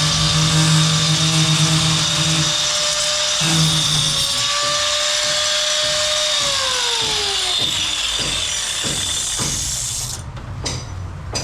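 Handheld electric power tool running at speed. Its pitch falls as it winds down, and it stops shortly before the end.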